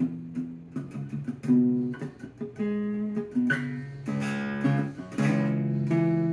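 Acoustic guitar playing a chord pattern, beginning suddenly with a struck chord, with each new stroke ringing on into the next: the instrumental opening of a song before the singing comes in.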